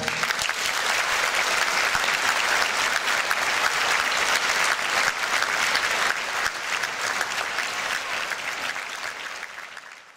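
Large audience applauding, a dense, even clapping that fades away near the end.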